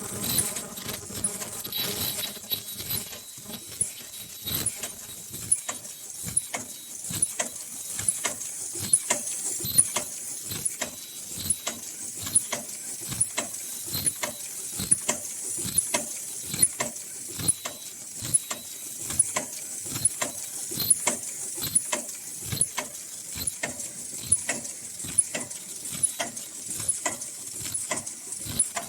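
High-speed N95 mask-making machine with in-line packing running, clacking rhythmically about twice a second over a steady high hiss.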